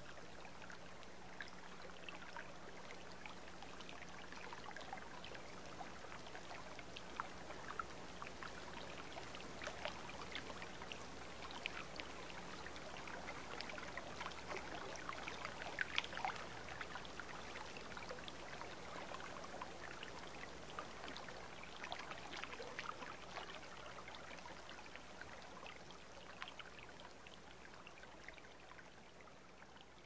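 Mountain stream running over rocks: a steady wash of water with many small splashes and drips, slowly fading out over the last several seconds.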